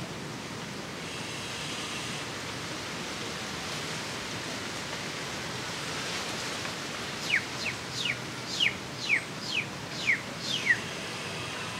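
A bird gives a run of about nine short chirps, each falling in pitch, over about three seconds in the second half, above a steady background hiss.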